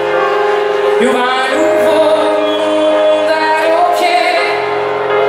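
Live pop song played by a band, with a woman singing long held notes over sustained chords and a steady bass line.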